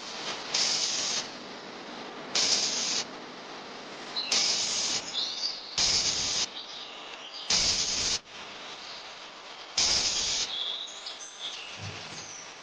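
Six short hissing bursts of about half a second each, spaced one to two seconds apart, over a steady background hiss.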